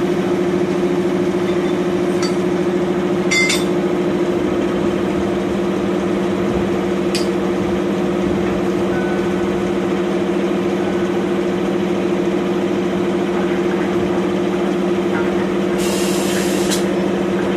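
Diesel locomotive engine idling with a steady low hum. A few sharp metallic clicks are heard about three and seven seconds in, and a short hiss comes near the end.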